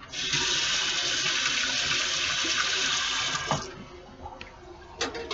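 Kitchen faucet running hard into a stainless steel sink for about three and a half seconds, switched on and off abruptly. Two sharp knocks follow near the end.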